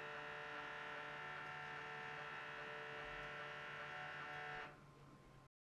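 Drive motor of a vertical HO-scale model railroad traverser running with a steady whine. The whine drops away sharply near the end.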